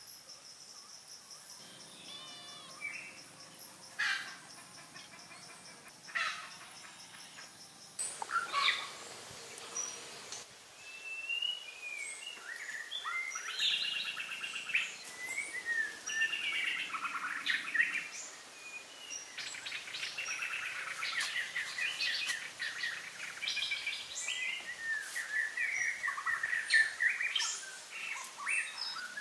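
Birds chirping and calling in forest, with many quick calls from about a third of the way in. Before that, a steady high insect hum and two sharp knocks.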